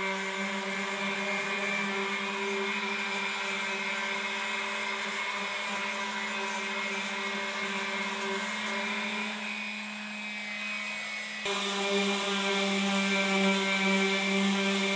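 Power sander running steadily on the truck's body panels, a constant motor hum and whine over a hiss, a little louder after a change near the end.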